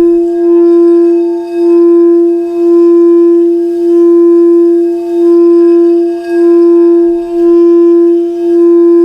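Singing bowl ringing one sustained, steady tone that swells and dips about once a second.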